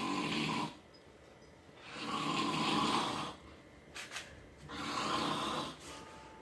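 A man snoring with slow, regular breaths: one snore ends just after the start, then two more follow, each a second or more long and about two to three seconds apart.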